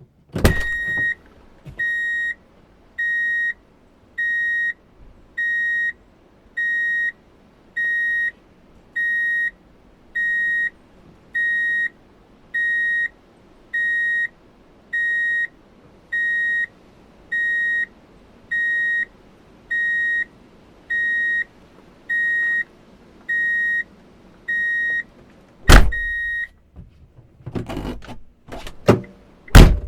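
Vehicle reverse-gear warning beeper, sounding a steady single-pitched beep about every 1.2 seconds, some twenty times, after a sharp clunk at the start. The beeps stop near the end, and several loud clunks and knocks follow.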